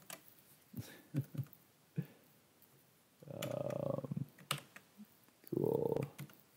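Computer keyboard keys tapped in a few scattered clicks while a coding typo is fixed, with a short wordless voice sound about three seconds in and a spoken 'cool' near the end.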